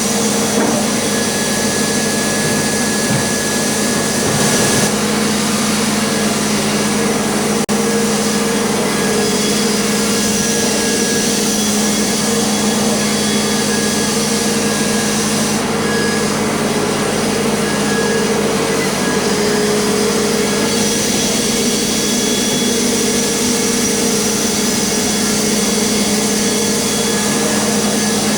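Sawmill running steadily as it mills oak logs, a continuous machine drone with a steady hum.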